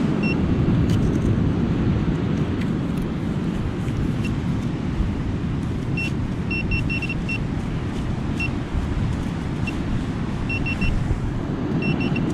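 Metal detector giving short high beeps, a few singly and several in quick runs of two to five, mostly in the second half, over a steady low rumble.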